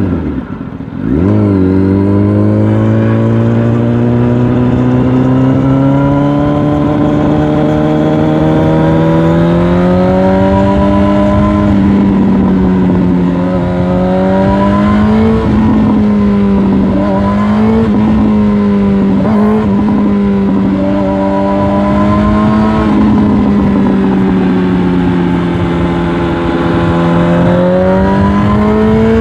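Yamaha R1 inline-four sportbike engine under way: its pitch dips near the start, then rises sharply about a second in. After that the engine runs on with its pitch swelling and falling as the throttle changes, over steady wind rush.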